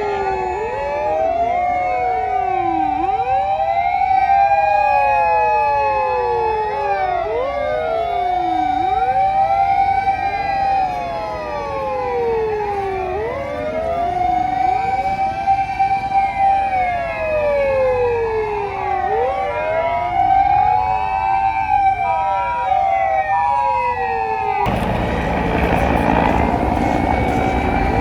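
Sirens of several Japanese fire engines wailing at once, each rising and falling out of step with the others, as the emergency vehicles run with sirens on; a steadier higher tone sounds alongside and starts to pulse near the end. Shortly before the end the sound cuts abruptly to louder engine and road noise, with a siren still wailing.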